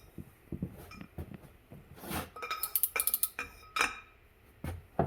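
Steel tools clinking and ringing: a jack handle and E-Torx socket knocking together as they are fitted up to break a tight bolt loose. A quick run of clinks comes about two and a half to three and a half seconds in, with a last sharp knock near the end.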